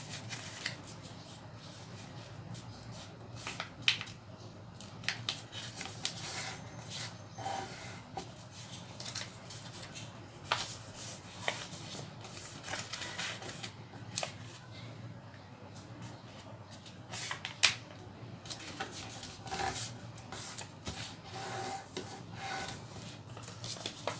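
A paper triangle being folded and creased by hand: scattered crinkles and sharp crackles of paper, with a faint steady low hum underneath.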